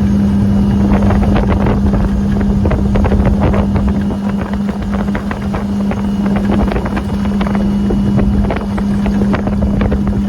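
Boat motor running at a steady pitch, with wind buffeting the microphone.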